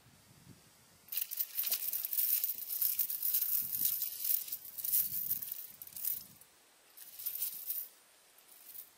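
Wet splashing and rattling in a small water-filled mud hole as a fish is hauled out by hand on a chain: a dense crackling noise starting about a second in and lasting about five seconds, then a shorter spell near the end.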